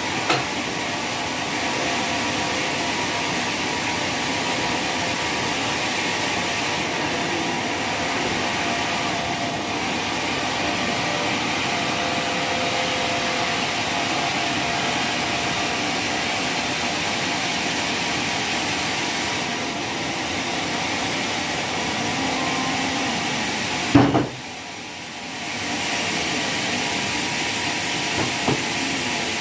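Sawmill saw running steadily as it cuts through waru (hibiscus) wood. Near the end there is a sharp knock, then the sound drops briefly before it picks up again.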